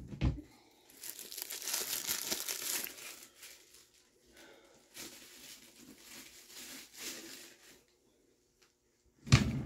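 Packaging crinkling and tearing as it is handled, in two spells of rustling, followed by a sharp thump near the end.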